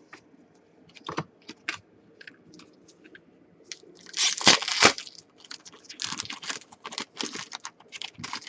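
Trading card pack wrapper crinkling and cards being handled: scattered clicks and rustles, a louder rip about four and a half seconds in, then a run of crinkling.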